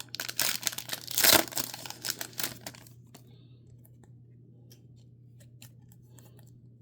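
Foil trading-card pack wrapper being torn open and crinkled for about three seconds, loudest just after the first second, followed by faint scattered ticks of cards and plastic being handled.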